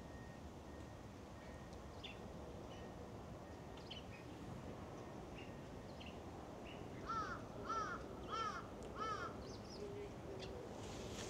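A crow cawing four times in quick succession, each caw a short arched call. Faint short bird chirps come before the caws.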